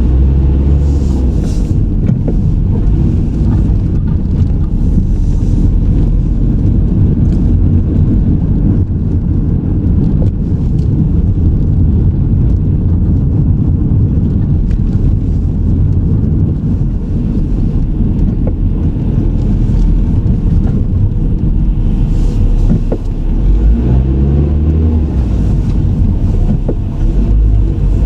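A car driving, with engine and road noise heard from inside the cabin as a steady low rumble. Near the end the engine note climbs in steps as the car accelerates.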